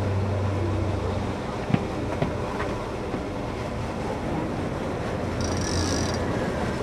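Steady rush of wind and water with a low drone from a rigid inflatable boat's twin outboard motors running at speed. Two sharp clicks come about two seconds in, and a brief high-pitched squeal sounds near the end.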